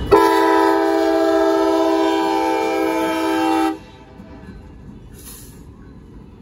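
Diesel locomotive's air horn sounding one long blast of about three and a half seconds. It starts abruptly and cuts off sharply. Afterwards the slowly rolling train rumbles quietly.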